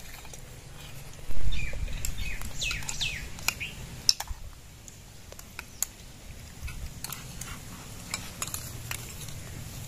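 Steel spoons clicking now and then against steel plates, with a few bird chirps about two to three seconds in. A low rumble starts about a second in and is the loudest sound.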